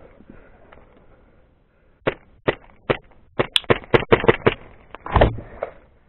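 Airsoft rifle firing single shots: three sharp cracks about half a second apart, then a quicker string of about nine. About five seconds in comes a louder, longer thump.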